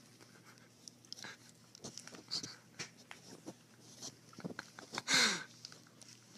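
Crinkling, scraping and clicking of a red package stuck over a cat's head as the cat moves about on bedding, with a brief louder rustle about five seconds in.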